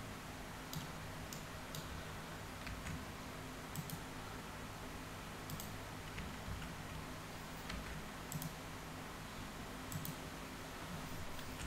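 Computer mouse and keyboard clicks: about a dozen short, sharp clicks at uneven intervals, over a steady low hum.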